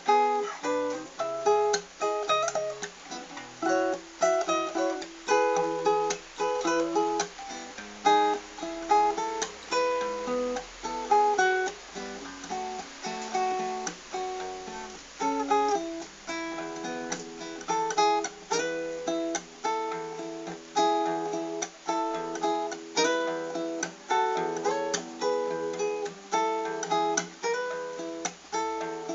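Acoustic guitar playing a melody over chords, plucked notes in a steady rhythm.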